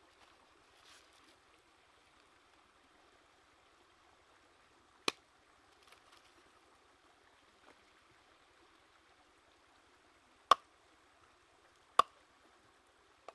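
Cleaver chopping through a chicken onto a wooden chopping board: three sharp single chops, one about five seconds in and two louder ones near the end. A faint steady stream runs underneath.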